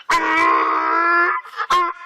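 A dog howling: one long, steady howl, then a short second call near the end.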